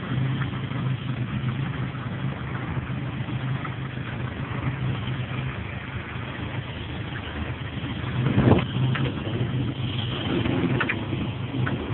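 Car engine running steadily, the knock in it taken by the owner for rod knock. A short louder rush of noise about eight and a half seconds in.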